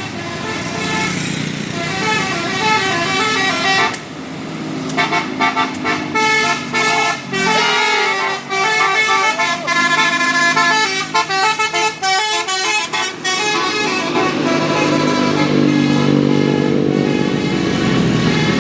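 Bus telolet Basuri horn, a multi-trumpet musical horn, playing a melody: held chords, then a run of quick notes stepping up and down for several seconds, then held chords again.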